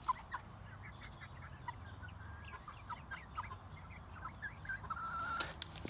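A small flock of young hens clucking and peeping softly, short calls scattered throughout and one longer held note near the end.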